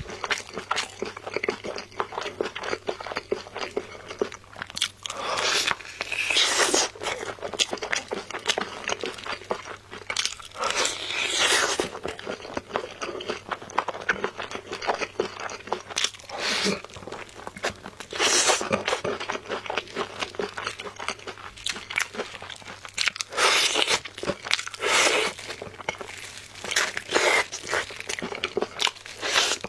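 Close-up crunching and chewing of sauced Korean-style fried chicken: crisp bites into the coating give louder crunches every few seconds, with steady smaller chewing clicks between them.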